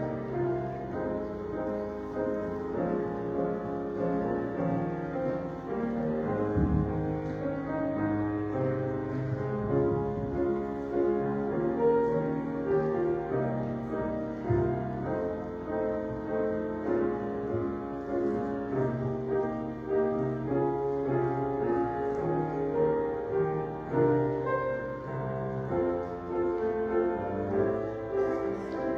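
Piano playing slow offertory music, with held chords.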